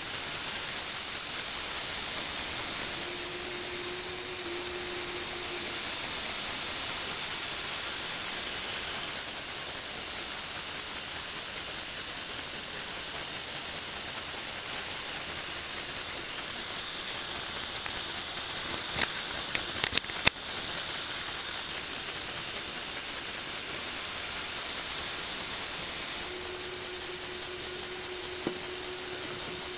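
Lego Technic Power Functions motors driving a gear train, running with a steady high whirring hiss, which changes about 9 seconds in and again near the end as the platform's motion changes. A faint low hum comes in twice, and a few sharp clicks fall about two-thirds of the way through.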